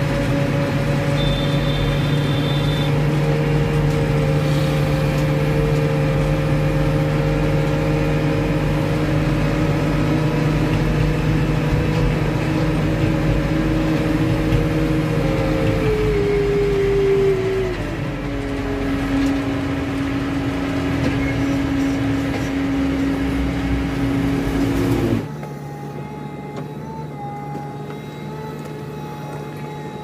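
JCB 3DX backhoe loader's diesel engine running as the machine drives along a road, heard from the cab; its pitch drops in steps about 15 to 18 seconds in as the engine revs down. Near the end the sound cuts suddenly to a quieter, steady engine hum of the backhoe at work.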